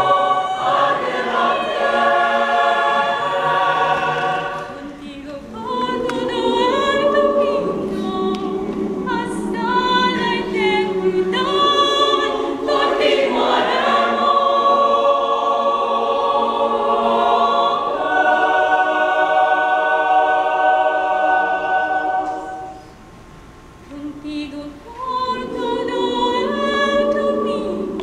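Mixed choir singing sustained chords with a female soloist carrying a vibrato melody in front of it. The sound thins out briefly about three-quarters of the way through, then the choir swells back in.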